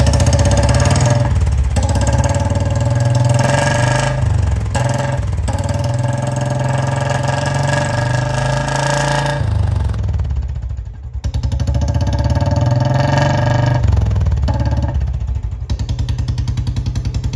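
Royal Enfield Bullet 350's single-cylinder engine running through a free-flow bend pipe and short-bottle silencer, blipped up and down in repeated revs. The revs drop off briefly about ten seconds in, and the engine settles to an even thumping idle near the end.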